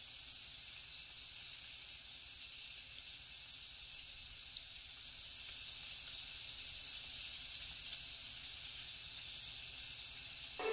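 Steady high-pitched insect buzzing, with a faint pulsing in the first couple of seconds.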